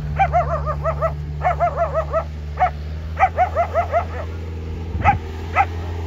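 Dog barking in quick runs of four or five sharp barks, with two single barks near the end, over the steady low drone of a vehicle engine.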